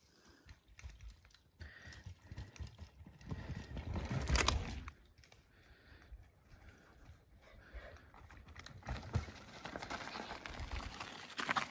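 A child's Islabikes Beinn 20 mountain bike rolling over a dirt forest trail: tyres crunching over twigs and needles with irregular clicks and rattles, loudest about four seconds in and again near the end as the bike comes close.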